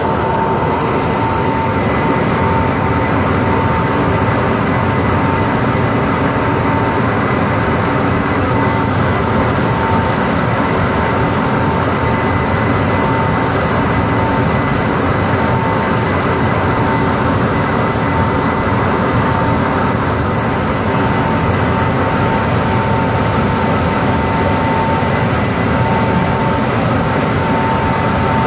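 Elliptical needle loom running at speed: a loud, steady industrial din with a constant whine, the needle beam's rapid strokes blurring into one continuous noise.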